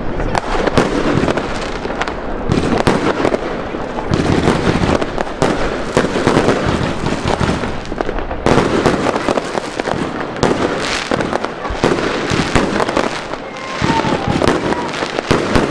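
Fireworks going off in a dense barrage of overlapping bangs and crackles.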